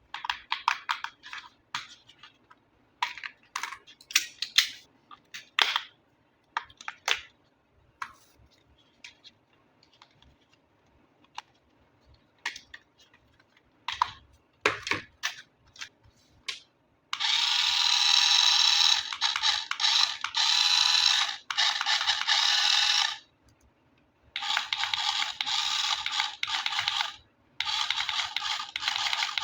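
Scattered clicks and crinkles of packaging and plastic parts being handled. From about halfway, a toy RC car's electric motor and gears whir in three long runs with short breaks between them.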